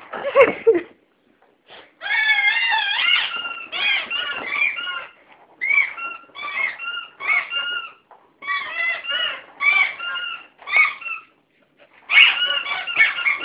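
Small Lhasa Apso–Maltese mix dog vocalising excitedly in high-pitched, wavering whines and yelps. The calls come in repeated bouts with short gaps, after a brief loud scuffle in the first second.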